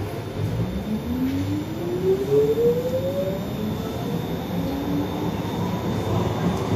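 Astra Imperio Metropolitan tram heard from inside the passenger saloon as it picks up speed. The electric traction drive's whine rises steadily in pitch for about three seconds over the low rumble of the wheels on the rails.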